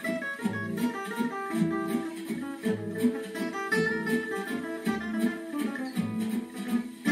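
Selmer-Maccaferri-style gypsy jazz guitar played solo, picking a melody over a low bass note about once a second with chords in between.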